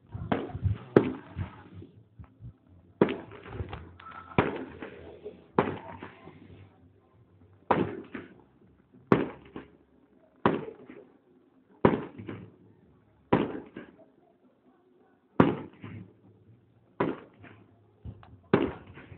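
Aerial fireworks going off: a string of sharp bangs, roughly one every second or two and sometimes two close together, each with an echoing tail.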